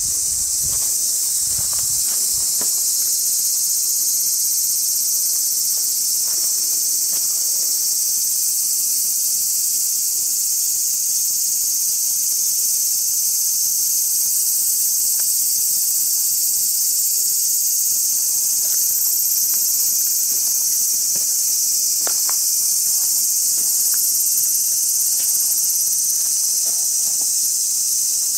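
Loud, steady chorus of summer insects: a dense high-pitched buzzing that holds level without pause. A few low thumps sound in the first couple of seconds.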